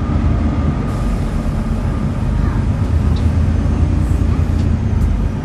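Volvo B7TL bus's turbocharged six-cylinder diesel engine running under way with a steady low rumble; a faint high turbo whistle comes in over the second half.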